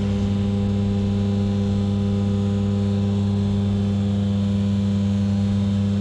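Electric hydraulic pump motor of a motorcycle lift running at a steady, unchanging hum while it raises a scooter.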